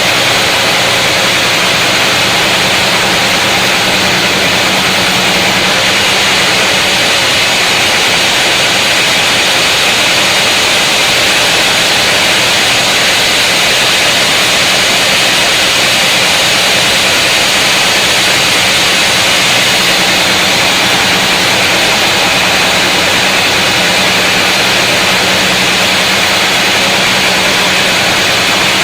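Large sawmill saw running steadily as it cuts through a big mahogany log, a constant machine hum under a loud, even hiss of the cut.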